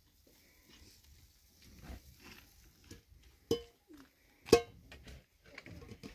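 Two sharp knocks about a second apart, the second the loudest, each with a short ringing tone, among faint scattered rustles and light knocks.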